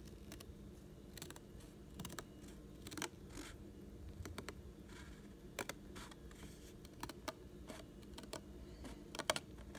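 Small scissors snipping through a water-slide decal sheet: a faint series of short, sharp snips at irregular spacing as the blades close on the paper.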